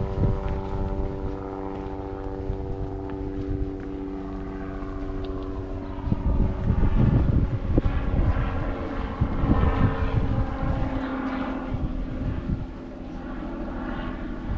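A steady engine-like drone holding one pitch, which fades out about six seconds in, over low wind rumble on the microphone; people's voices follow in the second half.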